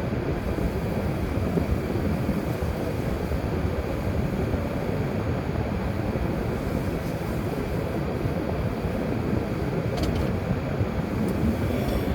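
Car driving along a road: a steady low rumble of tyre and road noise with the engine running.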